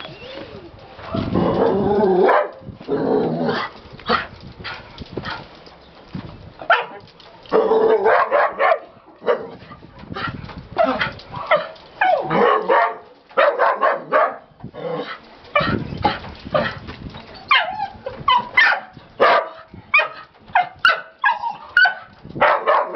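Dog barking and yipping repeatedly in short, irregular bursts.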